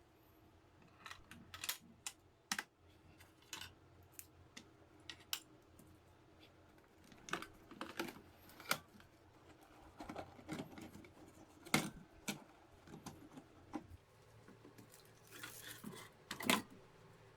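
Scattered small clicks and taps, irregular and quiet, some coming in quick clusters, like small hard objects being handled.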